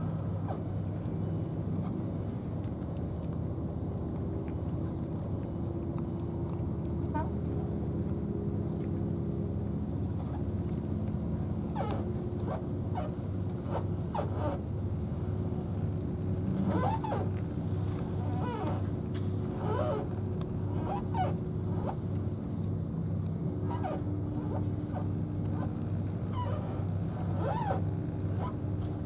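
An engine running steadily, a low, even hum. From about halfway through, short high chirps come and go over it.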